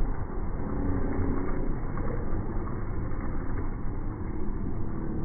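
Steady low background din of a busy open-air market, with no single sound standing out.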